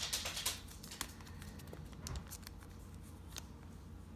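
Thin plastic card sleeve and top loader rustling and scraping as a sleeved trading card is handled and slid into the holder: a short louder rustle at the start, then faint scattered ticks and scrapes.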